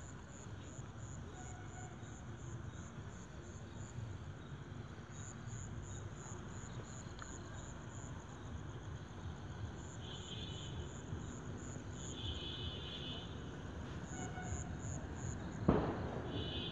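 Faint background with a steady, evenly repeating high chirping, about three chirps a second. There is a single sharp knock near the end.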